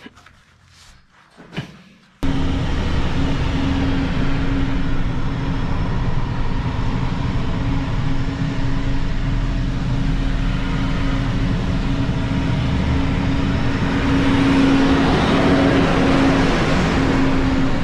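A few faint knocks, then about two seconds in a loud, steady engine noise starts abruptly with a constant hum, as from a running farm machine or vehicle.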